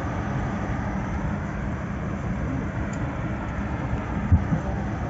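Steady cabin noise inside a Boeing 787 parked at the gate: a rush of air with a low hum. A single knock about four seconds in is the loudest moment.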